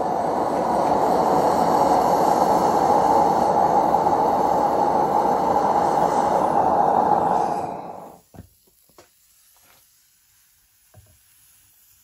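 Gas flame heating a homemade aluminium-melting furnace, burning with a loud steady rush, then dying away about eight seconds in. A few faint taps follow.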